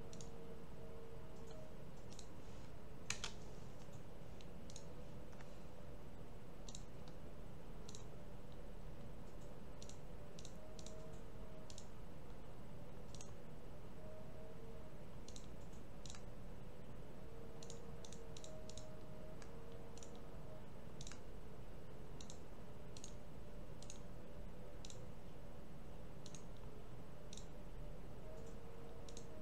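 Computer mouse clicking at irregular intervals, a single click every second or two, with one sharper click about three seconds in, over a low steady hum.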